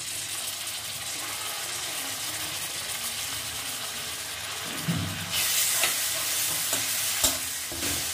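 Ground onion paste, then grated ginger and garlic, sizzling in hot oil in a metal kadai, a steady frying hiss. About five seconds in there is a thud, the sizzling gets louder, and a wooden spatula stirs and scrapes against the pan.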